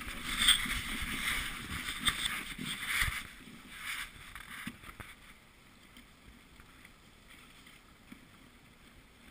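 Dog sled runners hissing and scraping over packed snow, with uneven surges for about three seconds before settling to a faint steady hiss.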